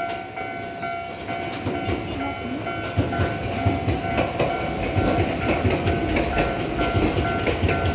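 Japanese level-crossing warning bell ringing in a steady, evenly repeating two-tone ding. From about three seconds in, a Keisei Skyliner train passes, its wheels clacking over the rail joints in a regular rhythm.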